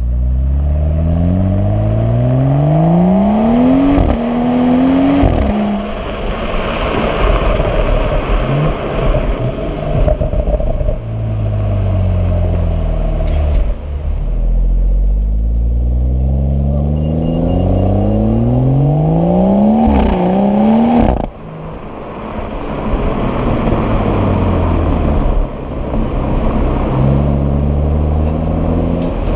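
Turbocharged 3.0-litre straight-six of a BMW M135i/M140i 1 Series with standard exhaust, accelerating hard twice. Each time the engine note climbs and then drops sharply as the automatic gearbox upshifts; steadier cruising and lifting off lie between, with a sudden drop in level about two-thirds of the way through.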